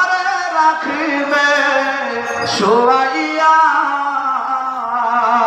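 A solo voice singing a slow Bengali Islamic devotional song (gojol) about death, sliding into long held notes with vibrato.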